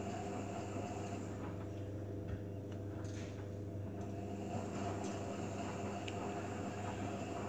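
Beko WMA 1510 W washing machine running on a 60°C eco wash: a steady motor hum with a few faint ticks.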